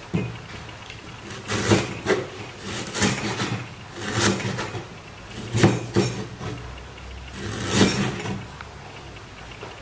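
Cleaver cutting on a wooden chopping board: a series of irregular knocks and short scraping cuts spaced a second or two apart.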